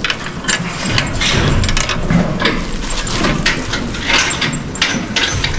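Scuffling and handling noise as men wrestle a young bull at a metal barn rail, with a plastic sack over its head: many irregular rustles and knocks.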